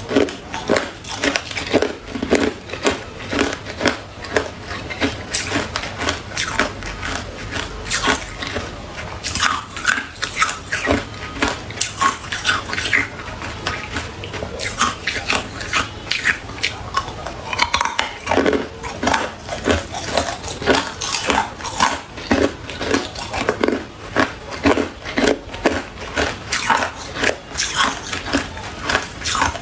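A person biting and chewing ice: a continuous run of sharp crunches and cracks as the ice breaks between the teeth.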